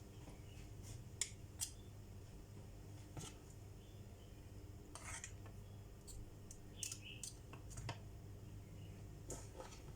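Scattered light clinks and taps of a kitchen utensil against muffin moulds, irregular and spaced out, while batter is spooned into them.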